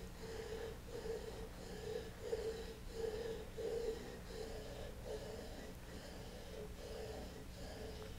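Steel back-bent carving gouge being rubbed back and forth on a wet, flat sharpening stone: a rhythmic scraping at about two strokes a second. The outside bevel on top of the gouge is being honed with the handle held low and a slight wrist roll so the stone reaches the whole curve.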